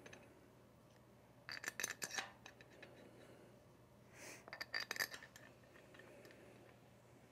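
Steel bolts clinking against a Carrier 06E compressor's cast cylinder head as they are set into its bolt holes by hand. Two short clusters of light metallic clicks, about a second and a half in and again near five seconds.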